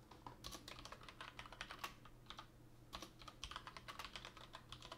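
Faint typing on a computer keyboard: quick runs of keystrokes with short pauses in between.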